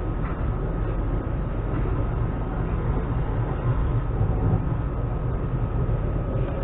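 Steady low rumble of an electric commuter train in motion, heard from inside the carriage, with a thin steady high tone running under it.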